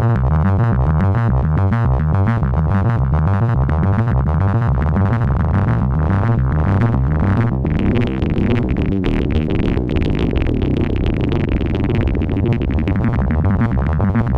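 Behringer MS-1 analog monophonic synthesizer, a clone of the Roland SH-101, playing a fast repeating pattern of short notes. About eight seconds in, the tone turns brighter and buzzier.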